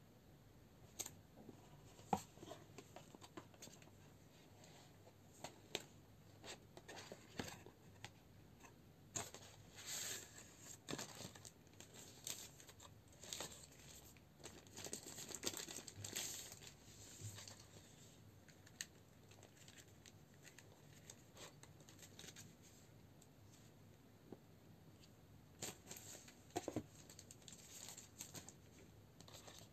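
Paper and cardboard phone packaging being handled: a thin protective paper sheet crinkling and rustling, with scattered taps and scrapes of the box and its inserts. The rustling is busiest for several seconds in the middle and sparse near the start and end.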